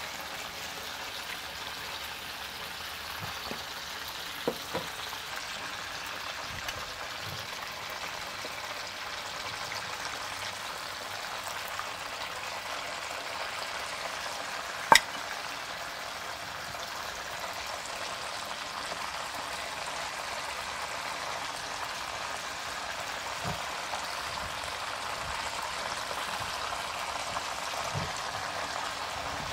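Floured mud crab and lobster pieces frying in hot oil, a steady sizzle. Metal tongs click against the pan a few times, with one sharp, loud click about halfway through.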